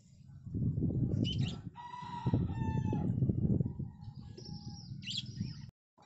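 A rooster crowing once, a drawn-out call lasting about a second and a half, over a loud low rumble. The sound cuts out briefly near the end.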